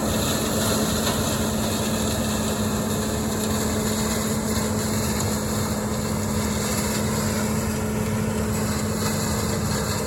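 John Deere 9400 combine running steadily, a constant machine drone with a steady low hum.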